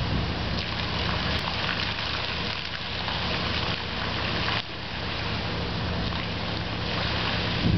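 Water jets of a granite fountain arcing up and splashing into its shallow basin: a steady splashing hiss that drops suddenly a little past halfway, as the jets change. A steady low hum runs underneath.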